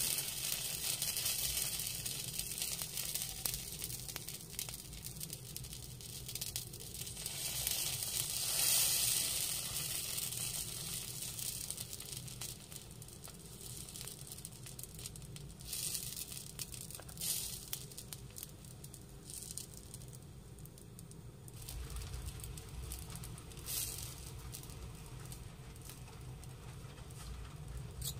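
Dosa batter sizzling on a small hot tawa, a steady hiss that starts as the batter is poured, swells about a third of the way in and then dies down. A few light clicks of the spoon come as the batter is spread.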